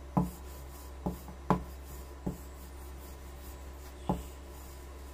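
Wooden rolling pin rolling out a sheet of samosa dough on a board: soft rubbing with five short, uneven knocks, the third the loudest.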